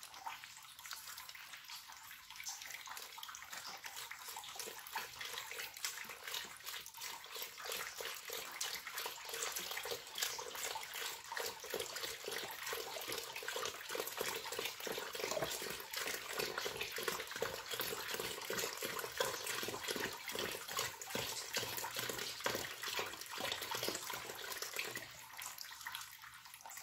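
Milk pouring in a steady stream from a carton into a stainless steel pot, splashing onto sugar and agar powder and then into the collecting liquid. The pour gets fuller a few seconds in and tails off near the end.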